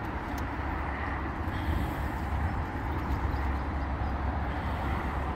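Wind buffeting the microphone outdoors: a steady, uneven low rumble with a hiss of moving air over it.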